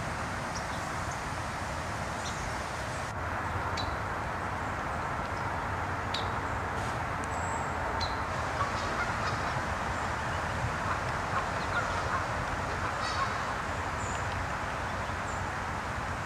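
Steady outdoor background noise, with short, high bird chirps and calls scattered through it every second or two.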